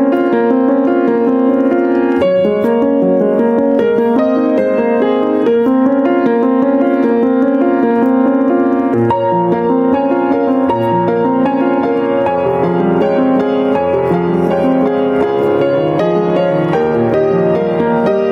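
Rippen upright piano played solo: a flowing, continuous run of notes in the middle register, with lower bass notes joining about nine seconds in.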